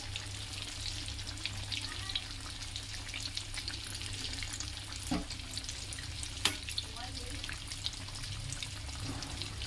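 Potato cutlets deep-frying in hot oil in a kadhai: a steady crackling sizzle of many tiny pops. Two sharp clicks stand out, about five and six and a half seconds in.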